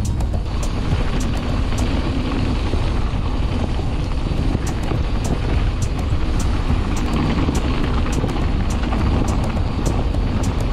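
Mountain bike rolling fast over a rough dirt and stone track, picked up by a camera mounted on the handlebars: a steady low rumble of tyres and wind, with frequent sharp clicks and rattles as the bike jolts over the stones.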